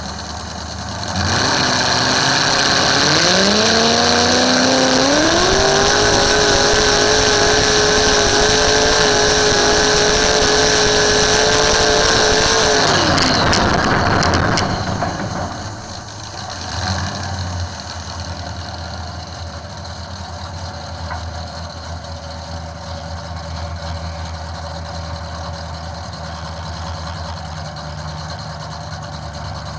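Engine of a garden pulling tractor, heard from on board, revving up in a couple of steps over a few seconds and holding at high revs for about eight seconds under load during a pull run. About halfway through it drops off and settles to a low idle.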